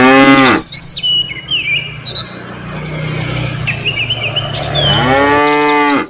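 Cattle mooing: a loud call at the start, then a long, low, drawn-out moo lasting several seconds, and another loud call near the end. Small birds chirp over it.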